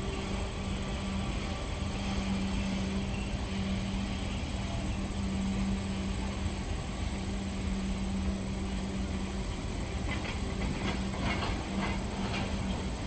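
Freight train of tank cars rolling past: a steady rumble of wheels on rail with a steady low hum. A run of quick wheel clicks comes near the end.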